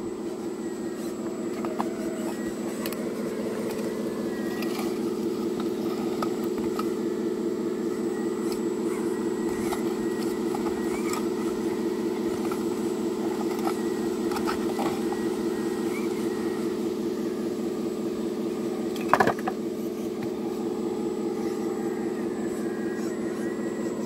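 RC excavator's electric motors whirring steadily while its bucket scrapes through dirt and stones, with scattered light clicks and one sharper clack of the bucket on rock near the end.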